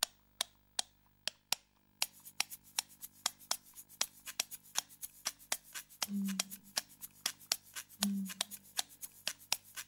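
Percussive intro music made of sharp clicks: a few spaced clicks at first, then from about two seconds in a fast, even ticking of about four or five a second, with a low thump twice, about two seconds apart.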